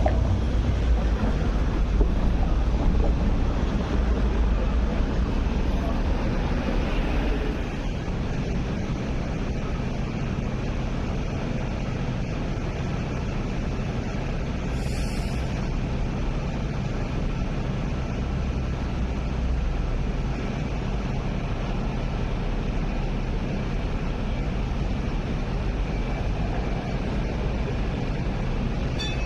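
Steady low rumble of road traffic and vehicles, a little louder for the first several seconds, then evening out.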